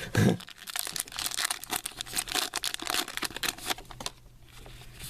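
Crinkling and crackling of a trading card pack's wrapper being torn open and handled, a dense run of rustles that pauses briefly about four seconds in.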